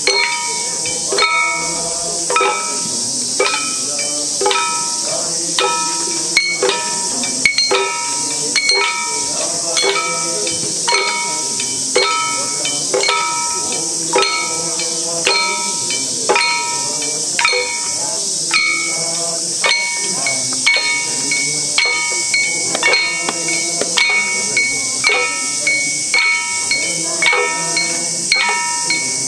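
Hand-held drums and bells of nembutsu dancers struck in a steady, even beat, with ringing tones after each stroke, over a constant high hiss.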